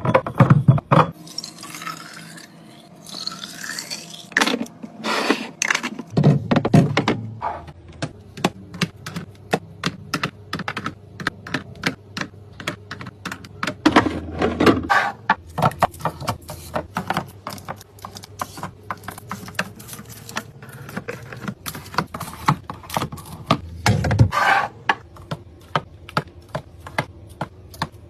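Many quick clicks, taps and knocks of containers and packages being set down and arranged, with a few heavier thunks and a long run of rapid clicking in the middle.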